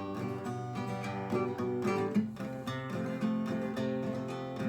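Acoustic guitar strummed in a steady rhythm, an instrumental outro after the last sung line of a song.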